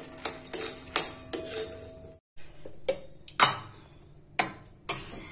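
A steel spoon scraping and clinking in a steel kadhai as dry-roasted makhana are scooped out, a quick run of small knocks. The sound cuts out briefly a little after two seconds, then comes back as a few louder, sharper knocks of the spoon on the pan.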